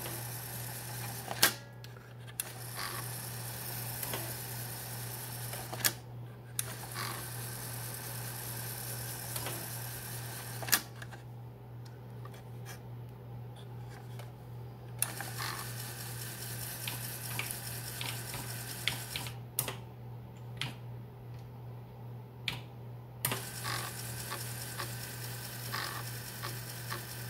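Opened 5.25-inch floppy drive working a bare floppy disk out of its jacket in an attempt to format its second side: a steady motor hum and a hiss that stops and starts again several times, with sharp clicks from the drive mechanism every few seconds. The disk does not take the format and turns out to be defective.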